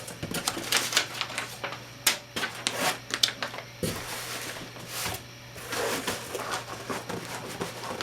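Cardboard packaging being handled and opened by hand: irregular taps, clicks and scrapes of cardboard flaps and box edges, with a faint steady low hum underneath.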